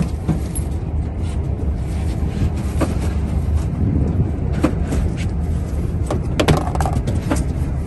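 Steady low rumble of a boat's engine on the water, with scattered knocks and clatters of objects being handled in a fibreglass boat, bunched together about six and a half seconds in.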